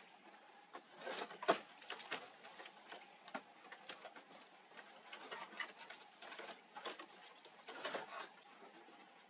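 A curved piece of tree bark and the dead-wood roof poles knocking and scraping as the bark is set over the ridge by hand, in irregular knocks with the sharpest about a second and a half in and a cluster near the end.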